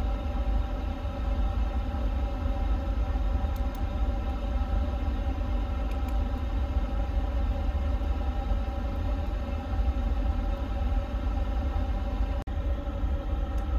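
Steady low rumble and hum of a powered-up airliner cockpit, with several constant tones held over it; it drops out for an instant near the end.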